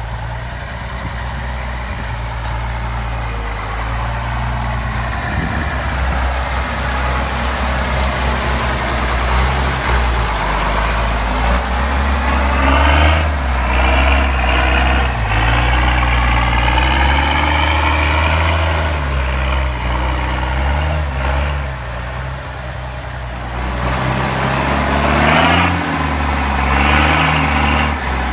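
County 1164 Turbo tractor's turbocharged diesel engine working hard while buck raking maize. The revs climb about a third of the way in, run high and uneven under load, ease off briefly near the end and then pick up again.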